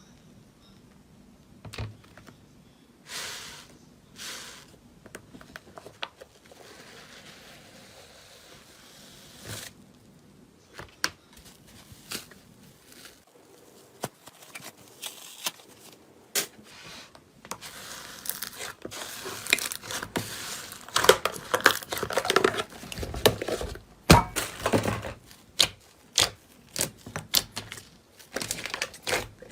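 Close-up crackling and crunching of a material being crushed and crinkled, scattered and sparse at first, then dense and louder for the last ten seconds or so.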